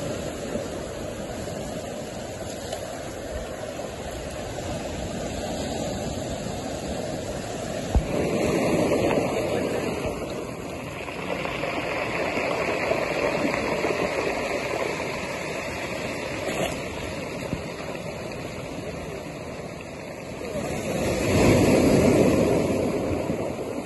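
Ocean surf breaking on rocks and washing up a cobble beach: a steady rush of water that swells about nine seconds in and again near the end, with a brief click about eight seconds in.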